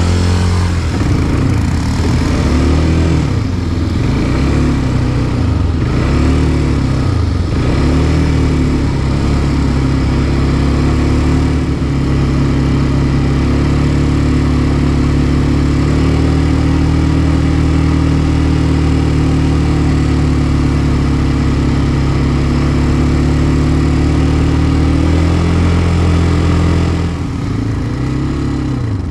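Quad bike (ATV) engine revving up and down several times, then running at a steady higher speed for a long stretch, and easing off near the end.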